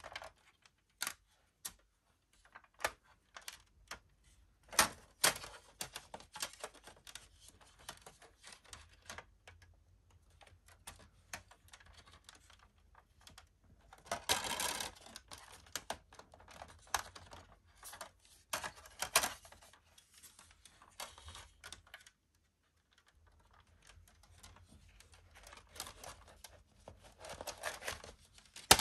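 A DVD box set and its packaging being handled: a string of sharp plastic clicks and taps, with stretches of rustling, tearing packaging about halfway through and again near the end.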